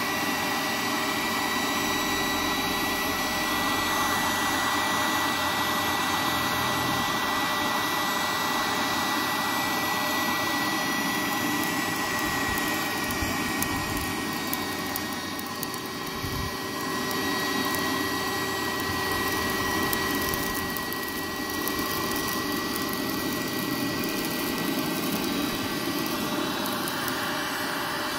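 Looftlighter electric charcoal lighter running: its fan blows a steady rush of superheated air into lump charcoal to light it, with a thin steady whine over the air noise.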